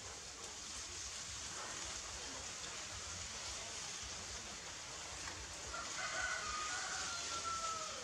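A rooster crows once, one long call starting about six seconds in, over a steady background hiss.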